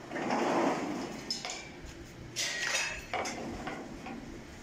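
Metal drawer in a welded steel frame slid by hand: a scraping slide in the first second, then a few short metallic knocks and clatters.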